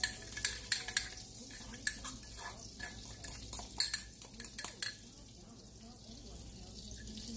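Small pancakes frying in hot oil in a stainless steel skillet, a steady fine crackling sizzle, with sharp clicks and clinks of a spoon against the ceramic batter dish and the pan scattered through it.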